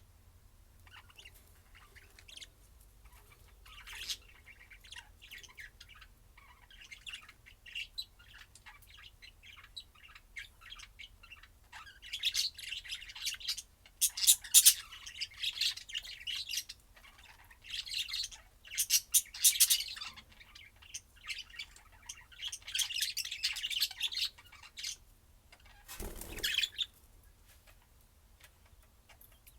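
Small pet parrots chirping and squawking in repeated bouts of busy high chatter, loudest through the middle. Near the end there is one short thump or rustle.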